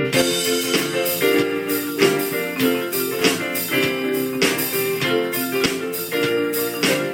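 Instrumental music: a keyboard playing chords and melody over a steady beat, with chiming percussion.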